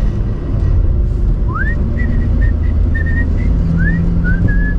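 Steady low drone of a Yugo Koral 45 heard from inside the cabin while driving, with a person whistling a short tune over it from about a second and a half in: upward slides and short held notes.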